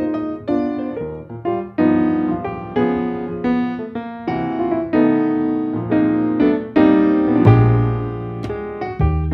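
Background piano music, a flowing run of struck notes and chords, with a deeper bass note coming in about three-quarters of the way through.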